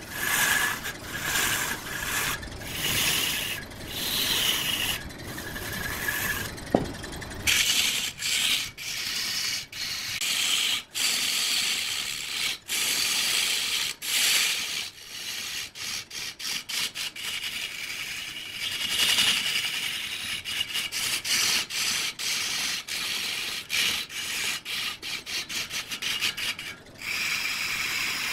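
Wood on a woodturning lathe being worked by a tool held against the spinning block: a rough scraping hiss, broken by many short breaks that come more often in the second half.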